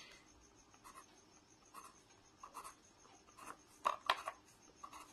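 Pen tip scratching on notebook paper in short, faint strokes as arrowheads are drawn on the ends of lines, with the strongest cluster of strokes about four seconds in.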